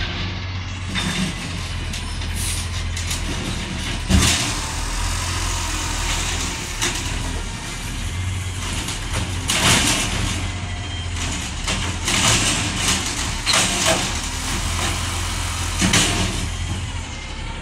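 Automated side-loader garbage truck's diesel engine running at low speed as the truck creeps along, with a steady low rumble and a few sharp knocks and short noise bursts from the truck's body and equipment.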